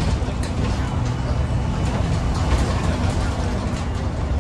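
Alexander Dennis Super Pointer Dart single-deck bus cruising at speed, heard inside the cabin: a steady low engine drone with road noise, and a few light rattles from the interior.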